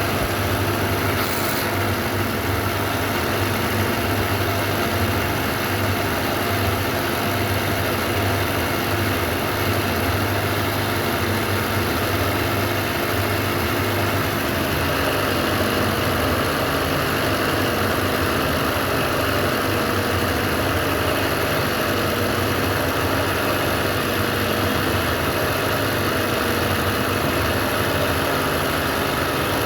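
Sewing machine running steadily, a continuous motor hum with the needle mechanism working as it stitches embroidery.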